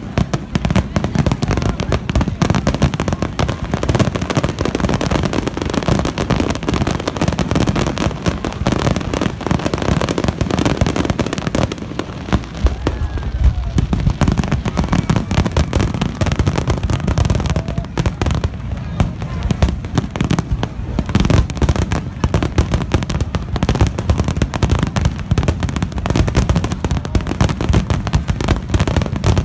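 Starmine fireworks finale: aerial shells launching and bursting in a rapid, continuous barrage of booms and crackling. The barrage thins briefly about thirteen seconds in.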